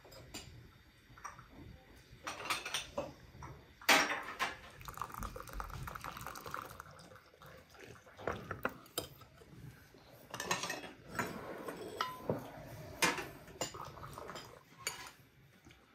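Metal spoons clinking and scraping against china plates and glass bowls during a meal, in scattered irregular clinks with a sharper knock about four seconds in.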